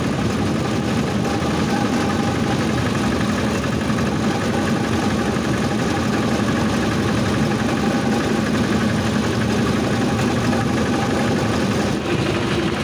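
Railway motor trolley's engine running steadily as the trolley travels along the track: a loud, continuous mechanical noise.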